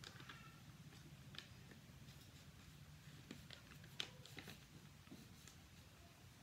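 Near silence with faint rustles and a few soft crackles of a sheet of A4 paper being folded and handled, the sharpest crackle about four seconds in, over a low steady hum.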